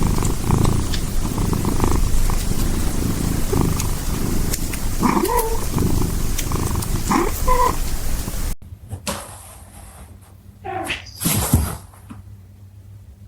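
Domestic cat purring loudly and close up, with two short rising chirp-like meows about five and seven seconds in. The purring stops abruptly with a cut, followed by a few brief, quieter cat cries.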